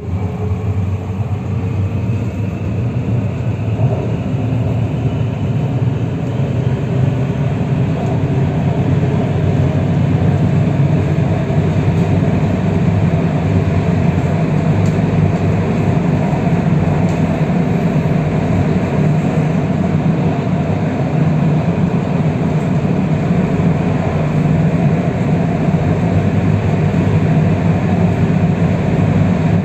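MRT metro train running on elevated track, heard from inside the car: a steady rumble of wheels on rail, with a motor whine rising in pitch in the first few seconds as the train picks up speed.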